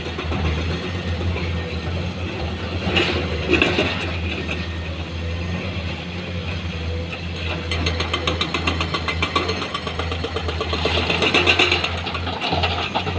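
Heavy earthmoving machinery engine running steadily with a low hum, with bouts of fast metallic rattling and clanking a few seconds in and again through the second half, as an excavator works loading stone into a dump truck.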